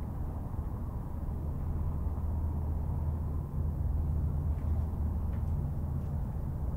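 Steady low rumble and hum of urban background noise, with a few faint ticks about two-thirds of the way in.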